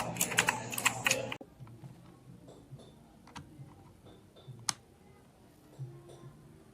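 Rapid typing on a LANGTU S69 hot-swappable mechanical keyboard, a dense clatter of key clicks that stops abruptly about a second and a half in. After that only a few faint clicks remain, with one sharper click about two-thirds of the way through.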